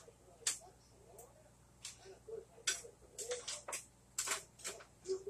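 A string of about ten light, irregular clicks and taps, a few closer together in the middle, over a faint steady hum.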